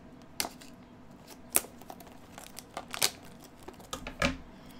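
Plastic wrap on a trading-card blaster box crinkling and tearing as a dull knife cuts it open: a run of sharp, irregular crackles.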